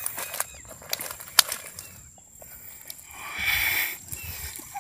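Rustling and sharp clicks as a mesh net of freshly caught fish is handled on dry grass, with a louder hissing rush about three seconds in.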